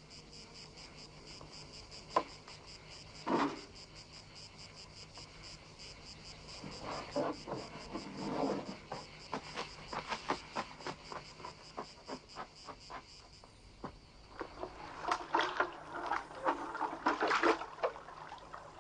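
Insects chirping in a steady, rapidly pulsing high trill. There are a couple of sharp knocks in the first few seconds, and louder rustling or splashing bursts near the end.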